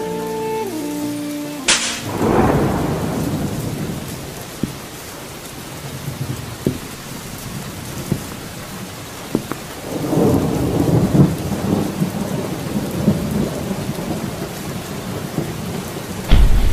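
Thunderstorm effect in a song's intro: rain hissing steadily, a sharp thunderclap about two seconds in followed by rolling thunder, a second long rumble around the middle, and a heavy low boom near the end. The instrumental music fades out in the first two seconds.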